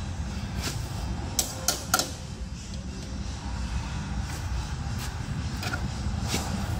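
Sharp metallic clicks and taps of pliers against a trailer hub's grease cap as it is worked loose, three loud ones in quick succession a little over a second in and fainter ones later, over a steady low rumble.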